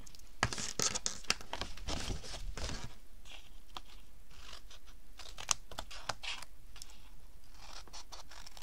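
Scissors snipping the corners of a sheet of card stock and the card rustling as it is handled, over faint irregular patter of rain falling outside.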